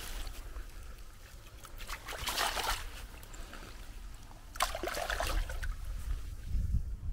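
Water splashing and trickling in two short bursts, about two and five seconds in.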